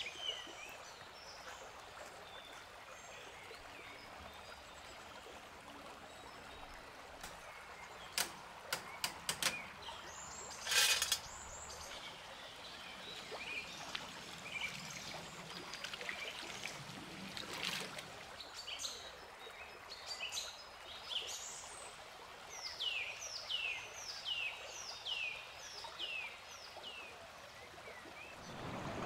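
Steady trickle of water with birds chirping. A few sharp clicks and a brief louder noise come about eight to eleven seconds in. Near the end a bird sings a run of about seven quick falling notes.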